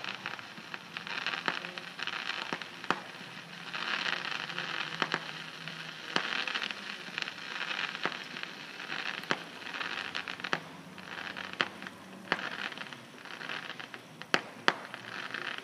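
Distant fireworks: a crackling hiss that swells and fades in waves, with sharp pops and bangs scattered irregularly through it and two louder bangs near the end.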